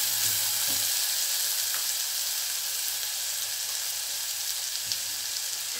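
Chopped onions frying in oil in a saucepan, already browned, with a steady sizzle and a silicone spatula stirring them now and then.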